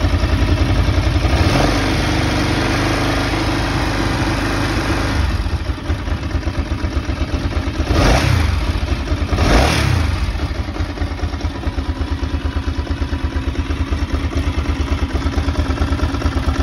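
Ducati MH900e's air-cooled 904 cc L-twin engine idling with a steady pulsing beat. The throttle is blipped twice, about eight and nine and a half seconds in, and the revs rise and drop back to idle each time.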